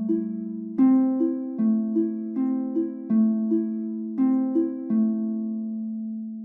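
Slow, gentle relaxation music of plucked, ringing notes, one after another about every half second over a sustained low tone, the last note fading out near the end.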